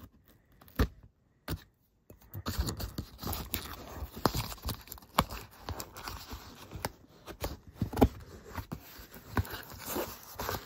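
Cardboard shipping box being opened by hand: a few scattered clicks at first, then about two seconds in a continuous scraping, rustling and tearing of cardboard as the flaps are pulled open, dotted with sharp ticks and knocks.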